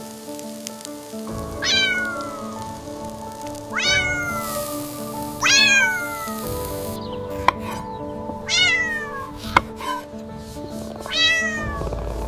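A cat meowing five times, each meow a high call that falls in pitch, over soft background music.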